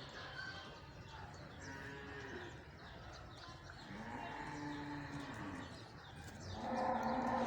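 Cattle mooing: three drawn-out calls that rise and fall in pitch, the last one the loudest, near the end.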